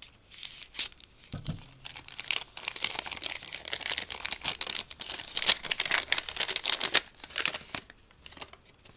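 Wrapping of a small packet being torn open and crinkled by hand, a dense crackling that runs until about a second before the end, with a short low knock about one and a half seconds in.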